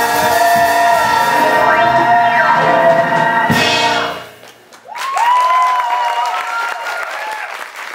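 The song's final held chord from the band and singers, cut off by a sharp final hit about three and a half seconds in. After a short lull, the audience applauds with cheers and whoops.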